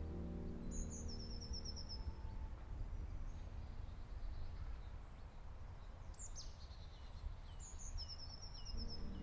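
Bird calls over a steady low rumble of outdoor ambience. A bird calls twice, about half a second in and again around six seconds in: a high chirp sliding down, then a quick run of even notes.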